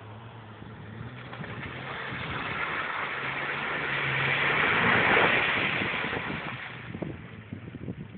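Jeep Cherokee engine running under load as it drives through mud and standing water, growing louder as it approaches and nears the microphone, then fading. A few short knocks come near the end.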